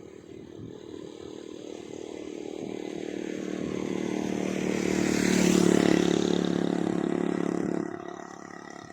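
A small engine running steadily as it draws near, growing louder to its loudest a little past the middle, then falling away abruptly near the end.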